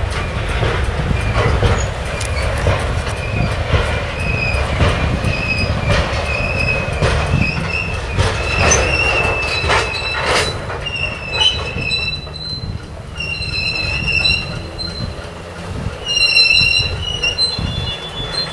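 Hopper cars of a slow-moving coal train rolling past, with a steady low rumble and clacks of the wheels over the rail joints. A high, wavering wheel squeal comes and goes and is strongest in the second half.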